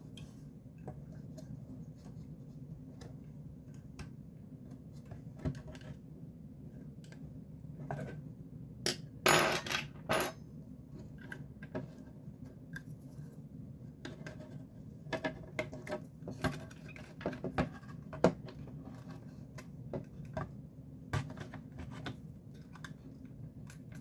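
Scattered clicks, taps and metallic clinks of hand tools and screws on a plastic speaker housing as it is being taken apart, with a louder burst of rattling and scraping about nine seconds in. A steady low hum runs underneath.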